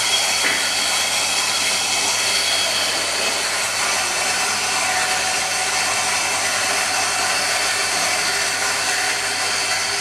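Carlton Kohi KH-800 electric burr coffee grinder running steadily, grinding coffee beans: a loud, even motor whine with grinding hiss.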